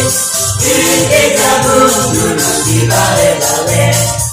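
Choir singing an upbeat song in harmony over a steady low beat, with a short break in the singing right at the end.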